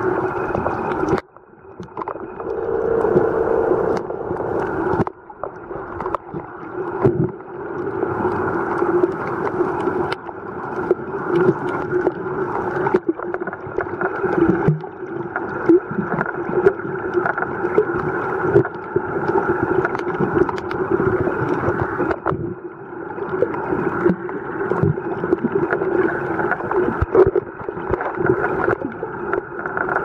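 Muffled underwater sound picked up by a camera in its housing: a steady drone like distant boat engines carrying through the water, with irregular knocks and water movement. It drops out briefly at a few cuts.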